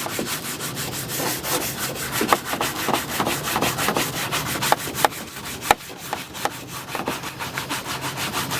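Fingernail brush scrubbing polish into the grainy-textured plastic of a Honda CR-V bumper in quick, even back-and-forth strokes, with a few sharper clicks. The bristles are working the polish down into the pores of the faded, oxidised plastic to deep-clean it.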